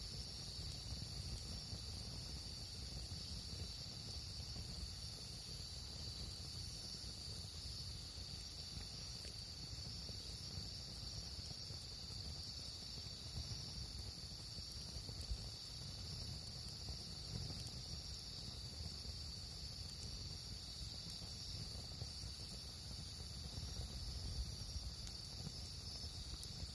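Steady, unbroken chorus of insects, likely crickets, as a high shrill band, over a faint low rumble.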